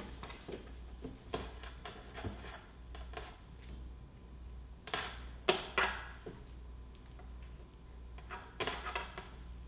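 Handling noise: scattered brief rustles and light knocks as fabric and small sewing materials are handled at a table, in three clusters (near the start, about halfway, and near the end), over a low steady hum.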